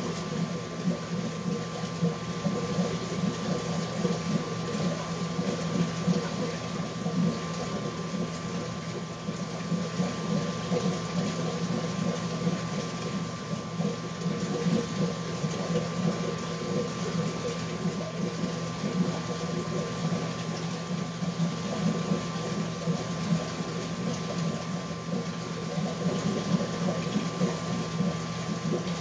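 Reef aquarium's water circulation running steadily: a constant wash of moving water with a steady pump hum underneath.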